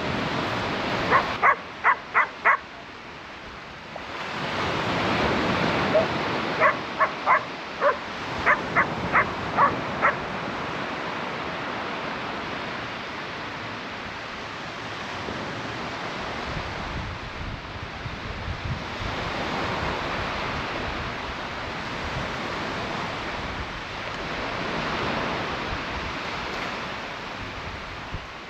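A dog barking in three quick runs of four or five barks each during the first ten seconds, over steady surf breaking on the beach.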